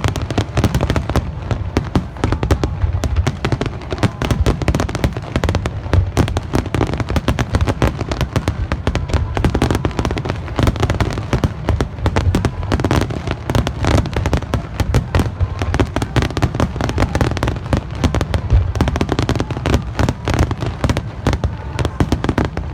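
A fireworks display barrage: many aerial shells bursting in rapid, overlapping succession, a dense continuous mix of deep booms and sharp crackling pops with no pause.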